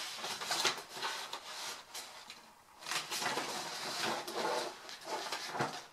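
Paper pattern sheets rustling and crinkling as they are handled and shuffled, in uneven bursts with a short lull about halfway through.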